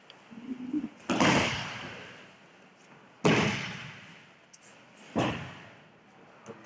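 Three loud thuds, about two seconds apart, of bodies hitting tatami mats as aikido partners are thrown and take breakfalls, each followed by a short echo.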